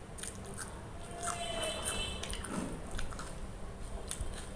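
Close-up eating sounds: chewing and biting a mouthful of pea pulao and raw onion ring, with repeated short wet smacks and sharp mouth clicks.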